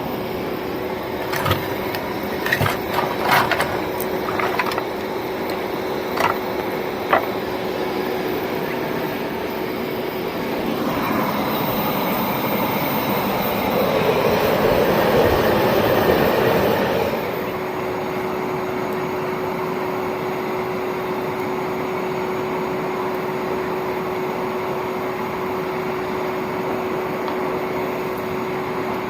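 Old vacuum cleaner motor used as a forge blower, running with a steady hum and an air rush, louder for a few seconds around the middle. Several sharp clicks and knocks come in the first seven seconds.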